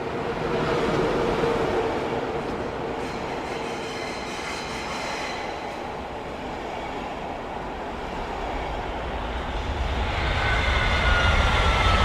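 High-speed train running on the rails: a steady rumble with faint high whines. About ten seconds in, the low rumble grows louder and a thin whine slides slowly down in pitch.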